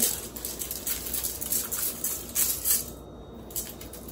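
Kosher salt shaken from its container onto oiled cabbage steaks in a foil-lined pan: a series of short, hissy sprinkles of grains, with a brief pause about three seconds in.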